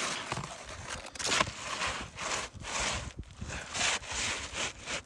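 Repeated gritty scraping and scuffing on asphalt roof shingles, a run of short rough strokes about two a second, the loudest a little after a second in.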